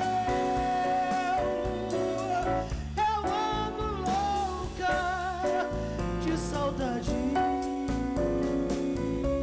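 A woman sings a Brazilian samba song live with a band. She holds one long note over the first few seconds, then sings a moving melody with pitch glides, over steady bass and a rhythmic accompaniment.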